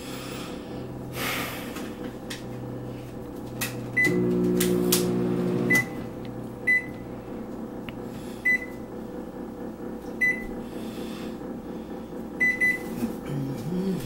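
Hamilton Beach microwave oven's keypad beeping as its buttons are pressed: short, single-pitch beeps a second or two apart, three in quick succession near the end. About four seconds in, one beep starts a low hum from the oven that stops with another beep nearly two seconds later.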